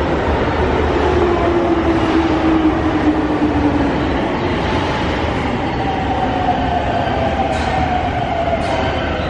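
Electric subway train heard through the station, a steady rumble with a motor whine that falls slowly in pitch, as a train slowing down.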